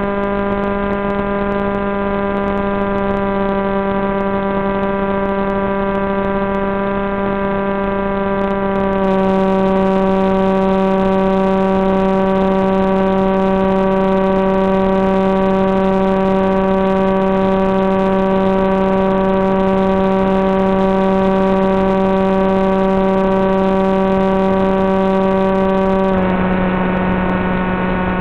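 Small electric motor and propeller of an FPV flying wing running at steady cruise throttle: a loud, even buzzing drone whose pitch shifts slightly, getting a little louder about a third of the way in and changing again near the end.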